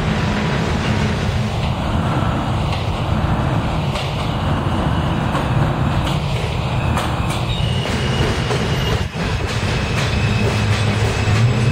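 NYC Subway R160 train pulling into an elevated station: wheels running on the rails under a dense low rumble, with the electric propulsion whining in rising and falling tones. In the last few seconds this gives way to steady high tones as it slows along the platform.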